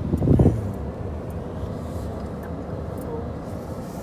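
Steady low rumble of a car driving, heard from inside the cabin, with a brief louder low rumble about half a second in.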